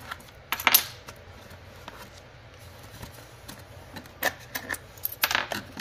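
Hands handling plastic toy prizes inside a cardboard box: a few sharp clicks and knocks. The loudest comes just under a second in, and a cluster follows near the end.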